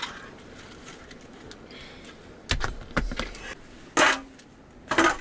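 Four sharp knocks, roughly a second apart, after a quiet stretch; the clatter of kitchen work with utensils or on a chopping surface.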